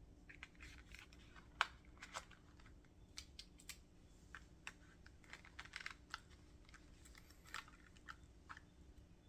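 Faint scattered clicks and rustles of a Victorinox Swiss Champ knife being handled in and out of a leather belt pouch, with a sharper click about one and a half seconds in.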